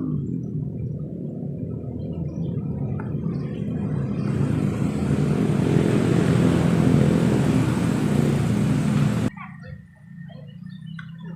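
Loud, steady low droning hum, joined about four seconds in by a rushing hiss; both cut off suddenly near the end, leaving quieter scattered sounds.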